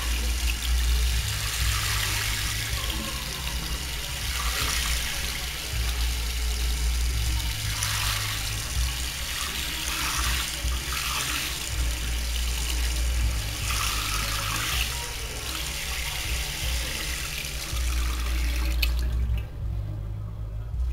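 Tap water spraying from a green water-saving faucet nozzle into a ceramic washbasin, a steady rushing hiss that cuts off suddenly near the end. Music with a low bass line plays underneath throughout.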